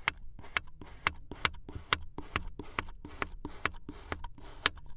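A knife chopping down through a block of kinetic sand again and again, dicing it into cubes. About a dozen short, crisp cuts come at a steady pace of roughly two a second.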